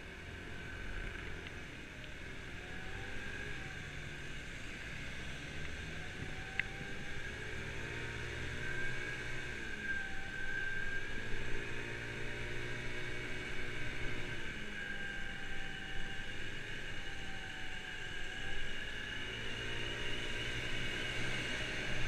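Kymco Agility 50cc scooter engine running while ridden, its pitch rising and falling several times as it speeds up and eases off, over a steady hiss of road and wind noise. One short click about six and a half seconds in.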